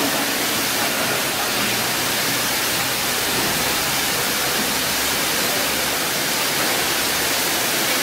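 Steady rushing hiss of water sprays inside a conveyor vegetable washing machine that showers the produce from above and below, with a faint low hum from the machine under it.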